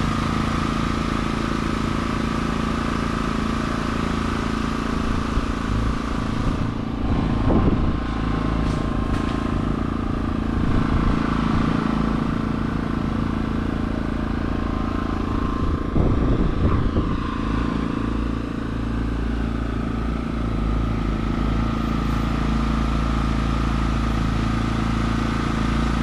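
Homemade air conditioner running: a steady motor hum with a constant whine. Two brief louder swells come about 7 and 16 seconds in.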